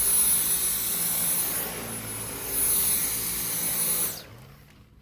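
Dyson V10 Total Clean cordless stick vacuum running over carpet with a high whine, swelling and easing in loudness. About four seconds in it is switched off and the sound cuts away.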